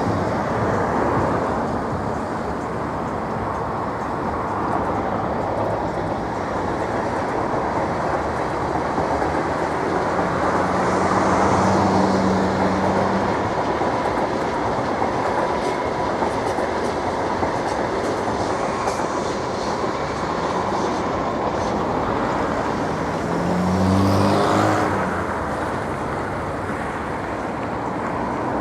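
Steady, dense industrial drone from the Izhora Works heavy-engineering plant, humming like a beehive. It swells twice, about 12 seconds in and near the end, when a passing vehicle adds a motor note that rises in pitch the second time.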